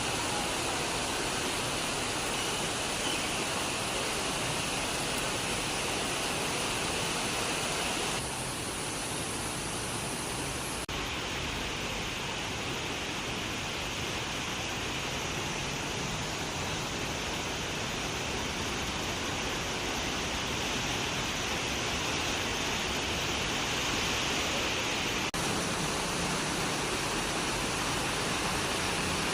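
Heavy rainstorm downpour: a steady, dense hiss of rain. Its tone shifts abruptly about eight, eleven and twenty-five seconds in.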